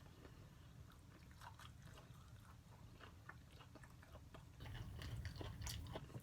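Faint chewing and small wet mouth clicks of a person eating, close to the microphone, growing a little louder near the end.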